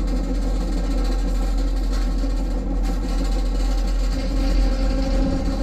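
Moving train running along the track: a steady, unbroken rumble.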